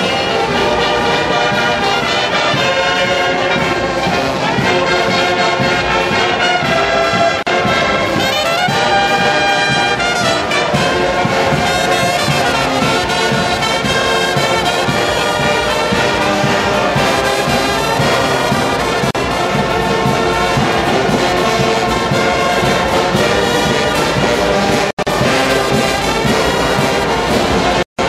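Brass band playing a sustained piece of music, cut by two very brief dropouts near the end.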